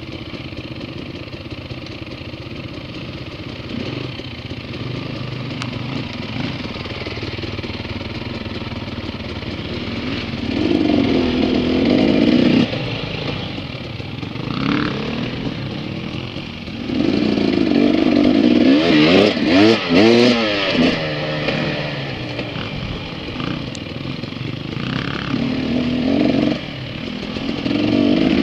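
Off-road dirt bike engines running on a trail ride, mostly at low, steady revs. There are louder bursts of throttle about ten seconds in, again for several seconds from about seventeen seconds with the pitch swinging up and down, and once more near the end.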